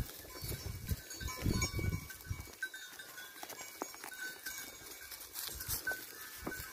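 Bells on a grazing flock of sheep clinking lightly and irregularly, with low rustling underneath.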